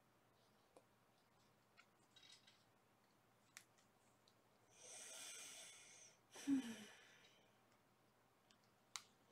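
Near silence with a few faint ticks, broken about five seconds in by a breathy rush of air lasting over a second, then a short sigh-like breath with a low voice in it.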